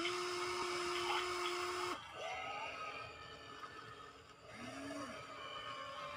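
Small electric gear motors of radio-controlled model excavators whining as the arms and tracks move: one steady whine for about two seconds, then shorter whines that rise and fall in pitch as the motors start and stop.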